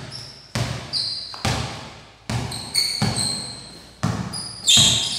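Basketball dribbled hard on a tiled floor in a bare room: about nine bounces at an uneven, stop-and-go pace, each ringing out with an echo.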